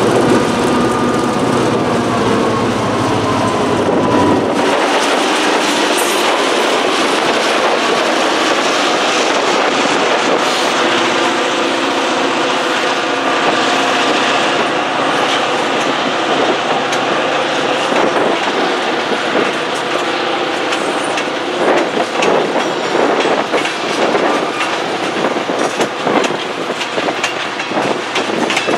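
Diesel-electric freight locomotive's engine running as it passes, its low rumble dropping away about four seconds in. Then a string of tank cars rolls by with steady wheel-on-rail noise, a thin squeal in the middle, and clickety-clack of wheels over rail joints coming in bursts near the end.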